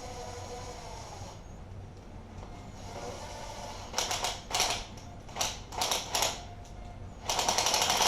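Ratchet wrench clicking in short strokes, then a longer run of fast clicking near the end, as it runs down the rocker arm bolts on a 6.0 Powerstroke diesel cylinder head.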